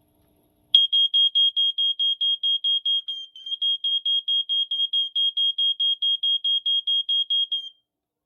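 BRK 2001 LVRI smoke alarm's horn sounding on test, running off a 9-volt battery wired to its 12-volt input terminals. A single high-pitched tone pulses rapidly, about four beeps a second; it starts under a second in, stumbles briefly a little over three seconds in, and stops shortly before the end.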